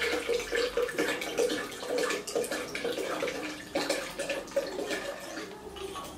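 Water poured from a glass bottle into a glass blender jug over almonds, splashing and glugging in an uneven stream; it grows fainter near the end.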